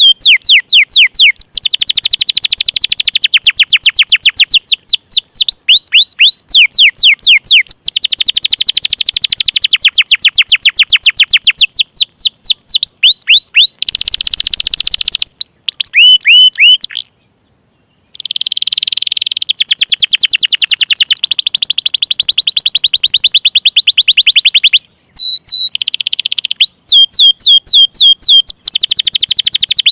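Domestic canary singing long, rapid trills of repeated chirping notes, phrase after phrase, with a break of about a second about two-thirds of the way through.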